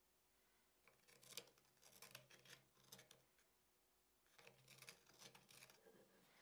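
Faint scratchy snipping and scraping of small hand work, in two spells of a second or two each.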